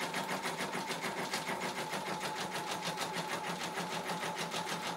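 Multi-needle embroidery machine stitching a design onto a hooped stuffed animal, with a rapid, even ticking of stitches and a steady motor hum.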